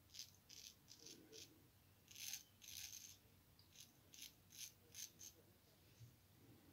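Faint scraping of a straight razor cutting lathered stubble on the cheek: about a dozen short strokes, two of them longer a little over two seconds in.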